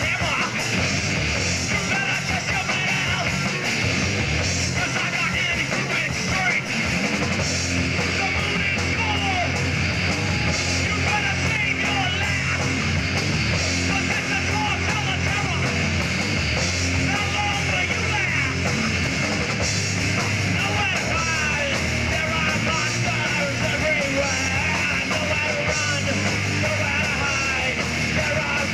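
Live rock band playing loudly and without a break: electric guitar and drum kit.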